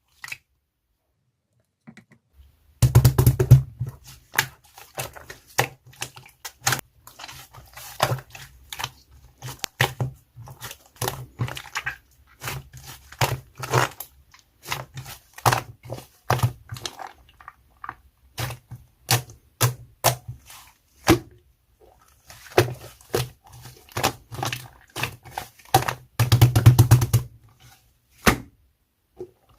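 Two-layer slime being squished and pressed by hand, giving irregular sticky clicks and pops. Dense runs of crackling air-bubble pops come about three seconds in and again near the end.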